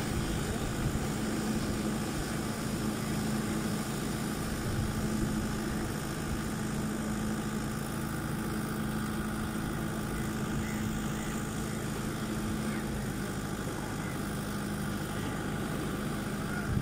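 Tractor diesel engine running steadily at a constant speed, with surf washing on the beach behind it.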